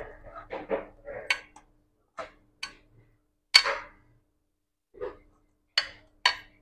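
Sharp clinks against a stainless steel pot, about six at uneven intervals, each leaving a brief metallic ring, among softer handling noise in the first second or so as mashed potato is scooped and worked by hand.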